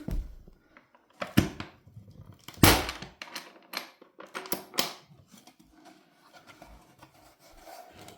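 A handful of sharp knocks and clacks from a boxed tank periscope and its packaging being handled, the loudest about three seconds in, followed by quieter rustling.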